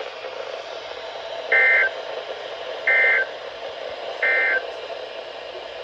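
NOAA Weather Radio Emergency Alert System End-of-Message signal: three short, identical two-tone warbling SAME data bursts about 1.3 seconds apart, marking the end of the warning broadcast. A steady radio hiss runs under and between them.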